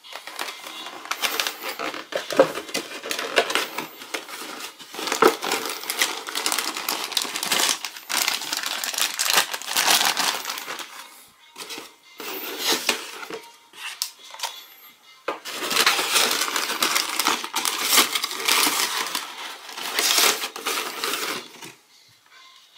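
Cardboard Happy Meal boxes being handled and pulled open, with plastic toy wrappers crinkling: irregular bursts of rustling and crackling with sharp clicks, broken by brief pauses about halfway and near the end.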